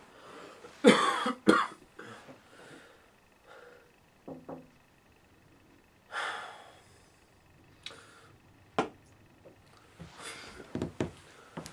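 A man coughs twice in quick succession about a second in. Softer breathing sounds and a few sharp clicks follow later.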